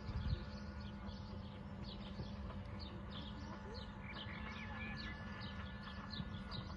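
Small birds chirping in the background, short falling notes repeated about two to three times a second, over a steady low hum.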